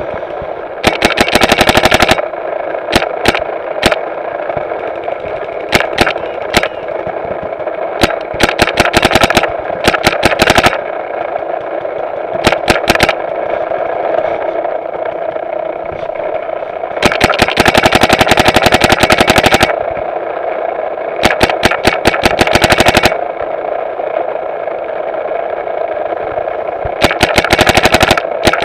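Paintball markers firing rapid strings of shots in about ten bursts, each lasting from under a second to nearly three seconds, the loudest very close, over a steady background noise.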